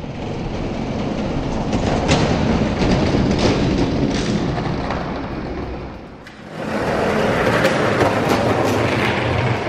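Two die-cast Hot Wheels monster trucks rolling down a sloped plastic Hot Wheels track, a steady rumbling run of wheels on track. It dies down about six seconds in and starts up again shortly after.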